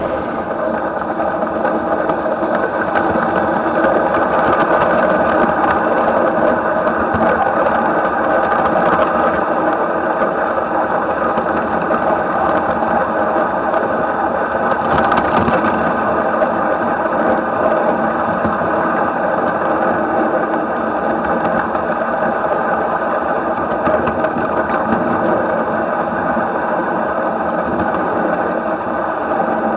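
1/8-scale live-steam model of a DB Class 23 locomotive running along its track, heard up close on its frame: a steady mechanical running noise with a constant hum, and a brief hissier patch about halfway through.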